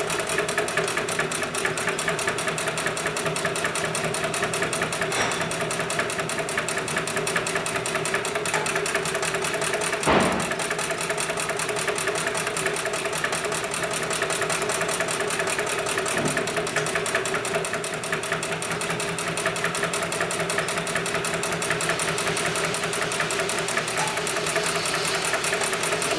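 Heavy-duty industrial sewing machine running at speed, a steady fast stitching rhythm over the hum of its motor. A single sharp knock about ten seconds in.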